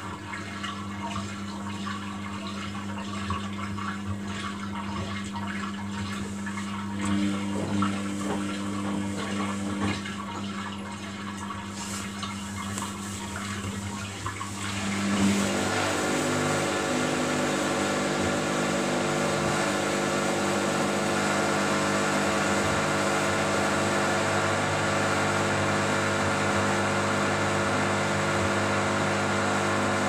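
Washing machines running a wash: water sloshing in the drum over a steady motor hum. About halfway through, a louder, steady motor whine with several tones starts.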